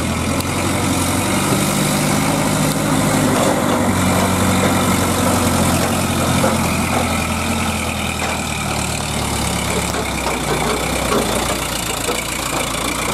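Diesel engine of an ACE hydra crane running as the crane drives up close, its note rising and falling in the first half and then settling to a steadier run.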